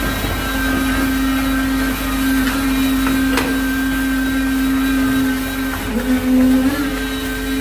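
Concrete-pouring machinery running with a steady high-pitched motor whine that dips briefly and recovers about six seconds in.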